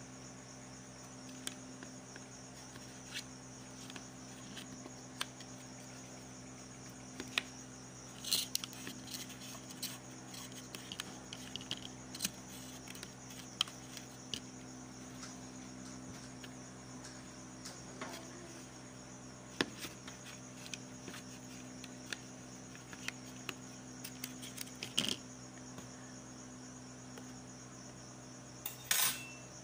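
Light clicks and taps of a fork and plastic utensil against a plastic container while food is portioned, scattered irregularly with a few louder ones. Behind them run a steady high-pitched whine and a low electrical hum.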